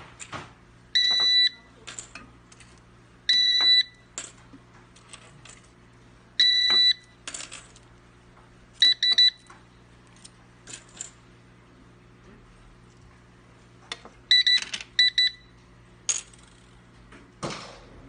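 Electric lock's RFID card reader beeping as key fobs and an ID card are held to it to enrol them: three single beeps about half a second long, then short clusters of quick beeps about 9 and 14.5 seconds in. Light clicks and knocks of the fobs and lock being handled come between, with a louder knock near the end.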